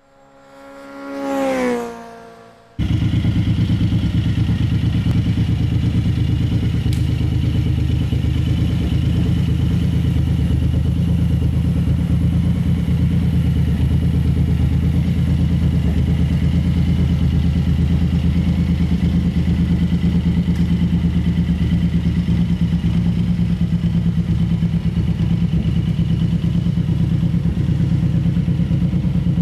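Suzuki Boulevard M109R's 1783 cc V-twin idling steadily with an even, rapid pulse. It cuts in abruptly about three seconds in, after a short tone that slides down in pitch.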